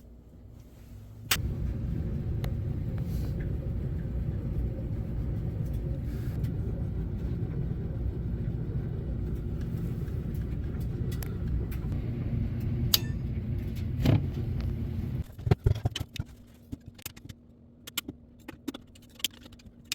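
A steady low rumble, like a running motor, switches on sharply about a second in and cuts off abruptly about fifteen seconds in. Scattered clicks and knocks follow.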